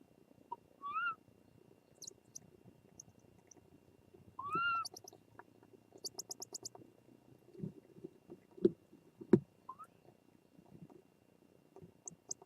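Japanese collared scops owl giving short rising mew calls, twice, with thin high chirps, one a quick series of about eight. Two sharp knocks about two-thirds of the way through are the loudest sounds.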